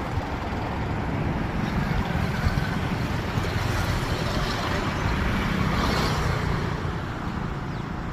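Diesel-electric multiple unit (DEMU) train running over a river bridge: a steady, loud rumble of its diesel engine and wheels on the rails.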